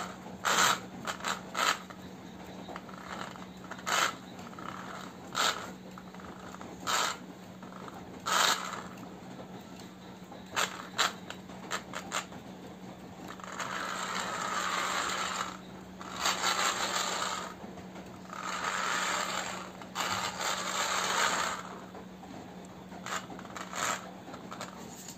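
Wired remote-control toy car's small electric motor and plastic gears whirring, with the wheels scraping on the floor: about eight short spurts in the first half, then four longer runs of a second or two each.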